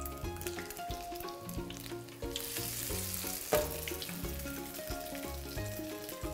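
Egg-and-flour-coated cauliflower florets deep-frying in hot oil, a steady sizzle and crackle. About two seconds in it swells to a louder hiss for about a second as another floret goes into the oil, and a sharp click follows. Background music with a melody and bass line plays underneath.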